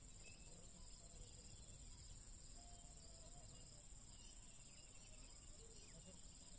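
Quiet riverside ambience: a steady, high-pitched insect drone, typical of crickets, with a few faint chirps.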